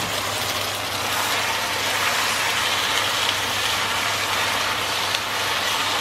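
Cubes of beef sizzling steadily in a frying pan as they release their juice, with a steady low hum underneath.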